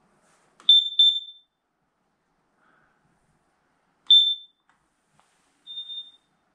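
Hardwired smoke detector chirping with short, loud, high-pitched beeps: two in quick succession about a second in, another about three seconds later, and a fainter, slightly longer beep near the end. It keeps beeping for no apparent reason while it is being reset.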